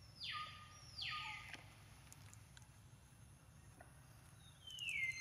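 Baby macaque crying: high-pitched calls that each slide down in pitch, two short ones about a second apart at the start and a longer one near the end.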